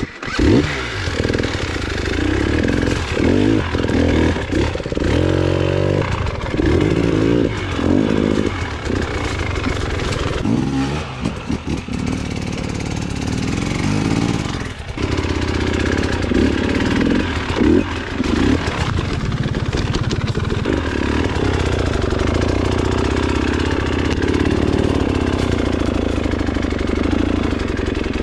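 Two-stroke enduro motorcycle engine, a KTM 300 EXC, catching abruptly right at the start, then revving in short repeated bursts of throttle, rising and falling, as it picks its way up a steep technical climb.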